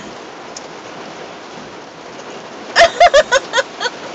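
Steady hiss, then about three seconds in a loud burst of high-pitched laughter: six or seven quick laughs in about a second, each falling in pitch.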